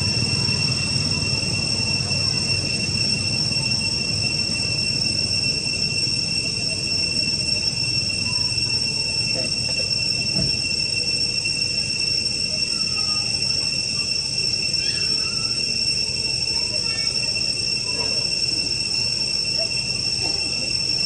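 Steady, high-pitched drone of insects in the trees, unbroken, over a low rumble, with a few faint chirps.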